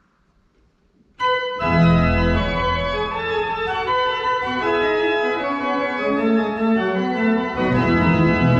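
Church pipe organ starting to play about a second in: full sustained chords with a deep pedal bass coming in just after.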